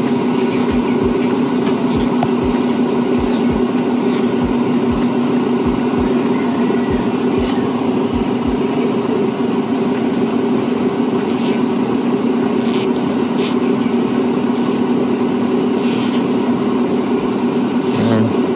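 A steady mechanical hum from an unseen motor or engine running nearby, holding one pitch throughout, with scattered soft low thumps and a few light clicks of handling.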